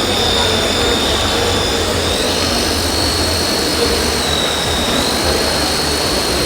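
High, steady electric whine of radio-controlled model construction machinery, over a continuous hiss. The pitch steps up slightly a couple of times and drops back between, as the load on the models' motors changes.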